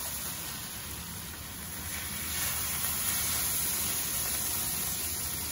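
Thin dosa batter sizzling on a hot tava over a high flame, a steady hiss that swells a little about two seconds in.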